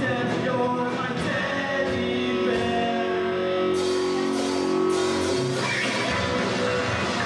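Skate-punk band playing live: electric guitars, bass and drums, with chords held and a cymbal wash in the middle.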